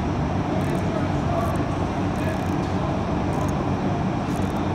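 Steady mechanical rumble of a workshop background, even and unbroken, with a few faint light clicks.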